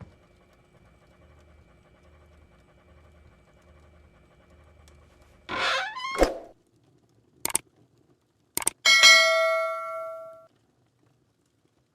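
A faint hum, then a short sweeping sound, a few sharp clicks, and a bell-like chime about nine seconds in that rings and fades over about a second and a half.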